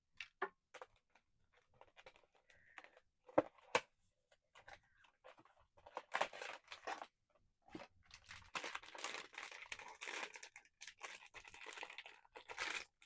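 Small cardboard blind box being handled and opened: a few sharp taps and clicks, then from about six seconds in a long stretch of tearing and crinkling packaging.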